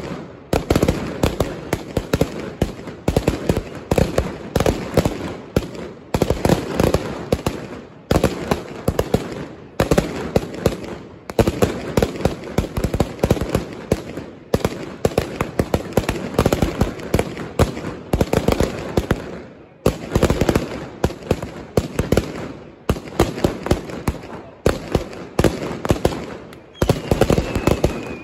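Mascletà firecrackers going off in rapid, dense volleys of bangs, with brief lulls every few seconds before the next volley. Near the end a falling whistle sounds over the bangs.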